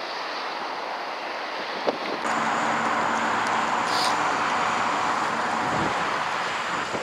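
Road vehicle pulling away, heard from on board: a steady rush of engine, tyre and wind noise comes up about two seconds in, after a small click.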